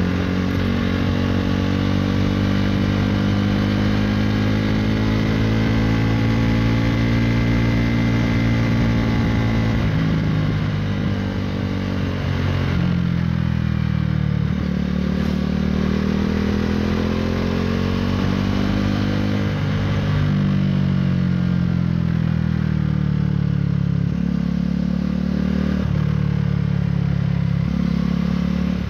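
KTM Duke 390's single-cylinder engine through an Akrapovic Racing Line exhaust, heard from the rider's seat while riding. The note climbs and falls slowly with the throttle, and in the second half it jumps suddenly in pitch several times.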